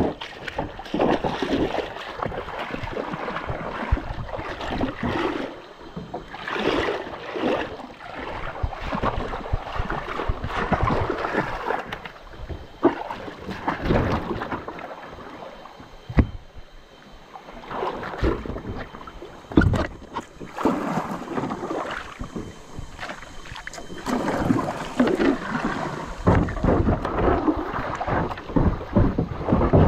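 Water splashing and churning around a kayak under way on a river, in uneven surges, with wind rumbling on the microphone.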